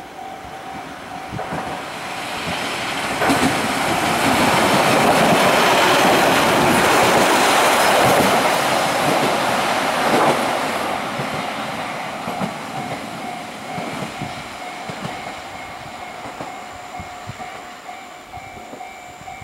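AN-8800 single-car diesel railcar running past close by, its sound swelling to loudest about four to ten seconds in and then fading as it moves away. A level-crossing warning bell rings steadily with a thin tone under it, heard plainly before and after the train's loudest part.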